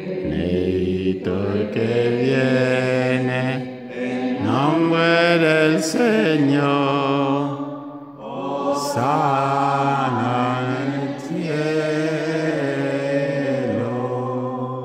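A man's voice singing a slow liturgical chant at Mass, with long held notes that waver slightly in pitch and short breath pauses about four and eight seconds in.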